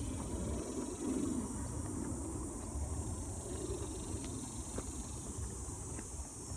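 Outdoor ambience: a fluctuating low rumble of wind on the microphone under a steady high hiss of insects, with a few faint clicks.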